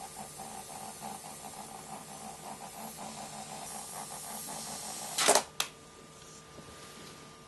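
A rubber balloon bursting with one loud pop about five seconds in, followed a moment later by a second short, sharp snap. Before the pop there is only a faint rhythmic pulsing.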